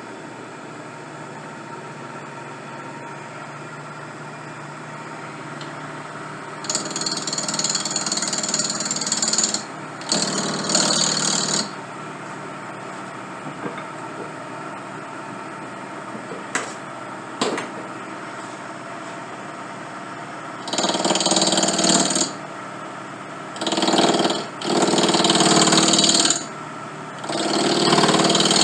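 A lathe running steadily, then a tool cutting into the spinning briar shank in six passes of one to three seconds each, loud and harsh, with two sharp clicks between the passes.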